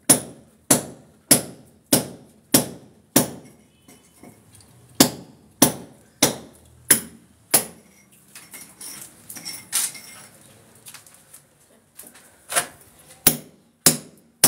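Hand sledgehammer striking a steel chisel into a plastered masonry wall, a sharp metallic clank about every 0.6 s. The strikes break off near the middle for about four seconds of lighter clatter, then start again near the end.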